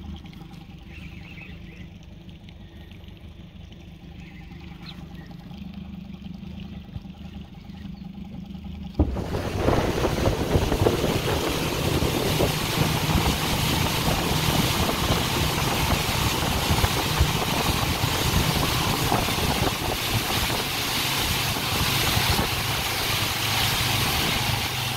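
A low steady hum, then about 9 s in, a small boat's outboard motor running at speed under the loud rush of wake spray and wind.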